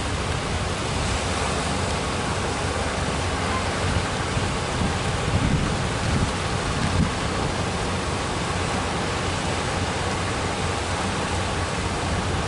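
Ocean surf breaking on the beach, a steady wash of noise, with a few louder low rumbles about five to seven seconds in.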